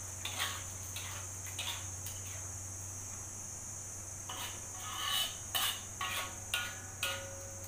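Metal spatula scraping and knocking against a steel wok as a thin chilli sauce is stirred: a few scrapes early on, then a quick run of clinks and scrapes through the second half, some with a brief metallic ring.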